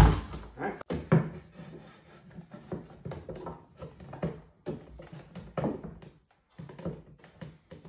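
A pneumatic brad nailer fires once with a sharp crack at the start, driving a nail into crown molding. Scattered lighter knocks and handling sounds follow as the molding is pressed into place.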